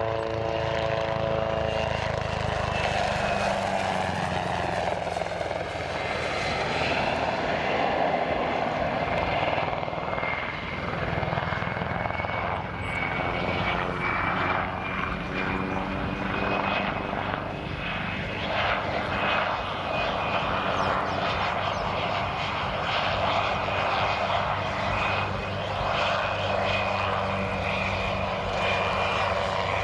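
PZL SW-4 Puszczyk light helicopter in flight: the steady beat of its main rotor under the high whine of its single turboshaft engine. The whine slowly rises in pitch as the helicopter manoeuvres and comes closer.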